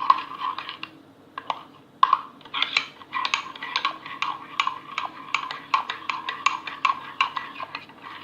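A spoon stirring batter in a mug, clinking against the mug's sides in quick repeated taps, with a short pause about a second in. The batter is mug-cake mix with lumps of butter not yet broken up.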